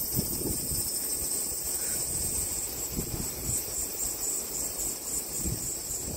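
Insects droning in a steady high chorus that begins to pulse about halfway through, over a low, uneven background rumble.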